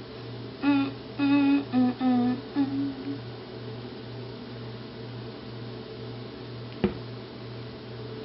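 A woman humming a short tune of about five held notes. After that only a steady low hum is heard, with a single sharp click near the end.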